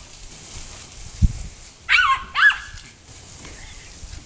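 Small Chorkie (Chihuahua–Yorkshire terrier mix) giving two short, high-pitched barks about two seconds in, half a second apart, as it chases the spray from a garden hose.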